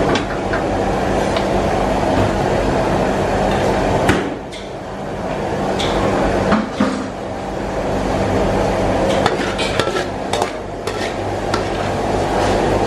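A metal ladle clinking and scraping in a steel wok, with scattered sharp knocks, as stir-fried vegetables are spooned out onto a plate. Under it runs a loud, steady kitchen hum that dips briefly about four seconds in.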